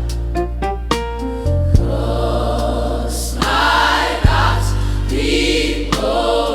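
Gospel music: a choir singing over keyboard accompaniment with long held bass notes. A quick run of keyboard notes comes in the first second or so.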